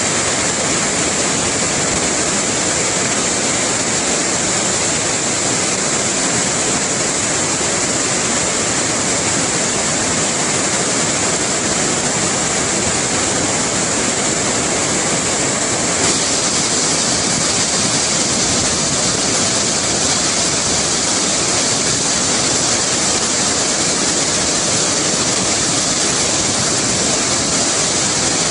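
Loud, steady rush of white water from the Chalakudy River's rapids at Vazhachal Falls, running high and pouring over rocks.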